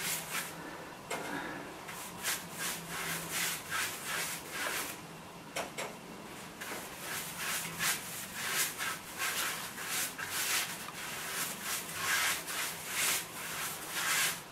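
Paintbrush bristles swept quickly back and forth over a pine rail, brushing on varnish: a run of short rubbing strokes, about two or three a second, with a brief lull about five seconds in.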